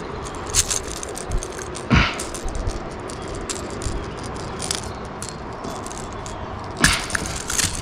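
Small rattling clicks and knocks of fishing gear handled in a kayak, with louder knocks about two seconds in and near the end, over a steady rushing noise.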